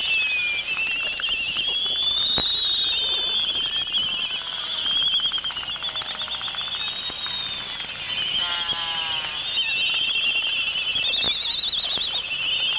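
Laysan albatrosses calling: a constant high, wavering whistling chorus from the colony. About five seconds in comes a rapid rattle of bill clattering, and around nine seconds a lower drawn-out call with several tones. These are the sounds of a pair's courtship dance.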